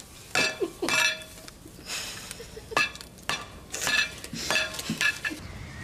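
Dishes and cutlery clinking: about a dozen sharp, irregularly spaced clinks with a short ring.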